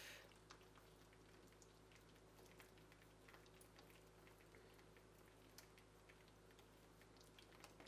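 Near silence: faint scattered wet ticks from dye-soaked yarn being pressed with a spoon in a steel pan, over a low steady hum.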